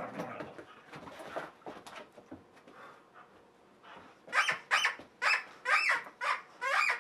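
Plush dog toy squeezed in a dog's jaws, squeaking about six times in quick succession from a little past halfway. Before that, scuffling and rustling on a dog bed.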